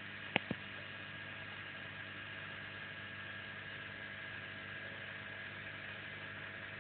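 Steady hum and hiss of saltwater aquarium equipment, a circulation pump and moving water, with two short clicks about half a second in.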